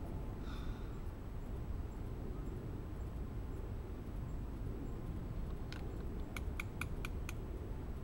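A spoon clinking against a small metal camp cooking pot, a quick run of about six light taps near the end, over a steady low rumble.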